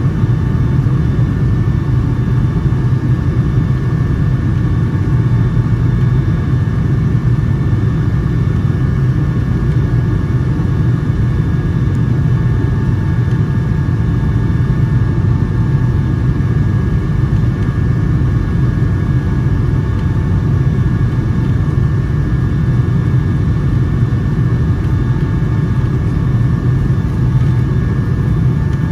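Steady rumble of a Boeing 757-200's jet engines and rushing air heard inside the passenger cabin, deep and even, with a faint steady whine above it.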